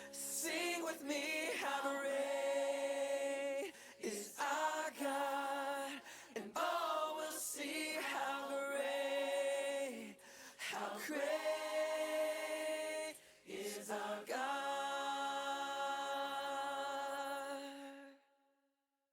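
Background music of sustained choral voices singing in long held notes, fading out near the end.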